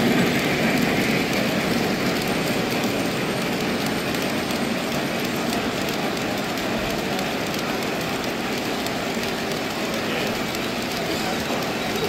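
Three-rail O-gauge model train of Union Pacific passenger cars rolling past on the layout track: a steady noise of wheels running on the rails, easing slightly in the first couple of seconds and then holding even.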